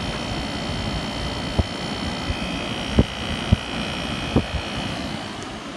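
1986 White Westinghouse 10,500 BTU air conditioner running with its fan motor and compressor going: a steady airy machine noise with a few high whining tones over it. Several short knocks sound in the middle.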